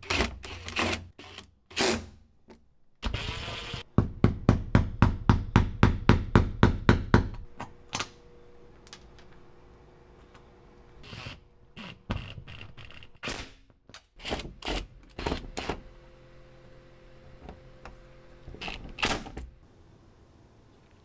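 A series of hard knocks and thunks. After a short scraping rush about three seconds in comes a quick run of about a dozen even knocks, about four a second. Scattered clicks and thunks follow, over a faint steady hum.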